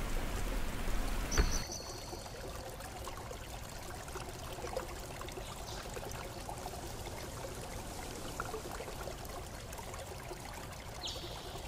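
Steady hiss of background noise. About a second and a half in there is a brief high tone and a click, and near the end a short rising tone.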